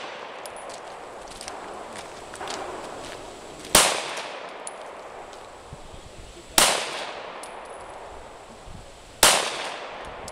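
Three gunshots fired slowly, about two and a half to three seconds apart, each trailing off in an echo. A faint high ping follows some of them under a second later.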